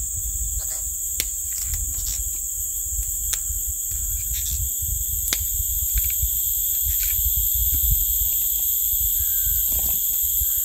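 A steady, unbroken chorus of insects keeps up a constant high-pitched buzz. Under it there is a low rumble, with scattered light clicks and taps.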